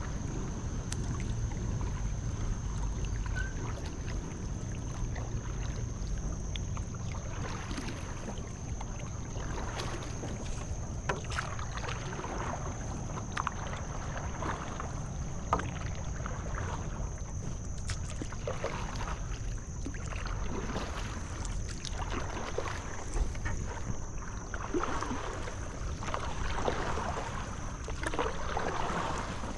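Stand-up paddleboard paddle dipping and pulling through calm river water, with small splashes and drips off the blade over a low wind rumble on the microphone. The splashing gets busier near the end.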